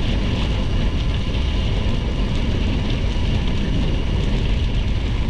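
Steady wind rushing over the microphone of a moving gravel bike, over the low rumble of its tyres rolling on a snowy gravel road, with faint scattered ticks.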